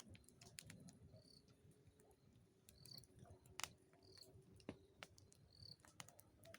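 Faint crackling and sharp pops of a wood campfire, with short high chirps repeating every second or so.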